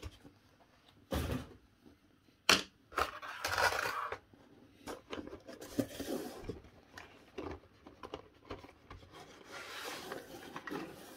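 Blister-carded Hot Wheels cars being shuffled and pulled out of a cardboard case: two sharp knocks in the first few seconds, then intermittent rustling and scraping of card against cardboard.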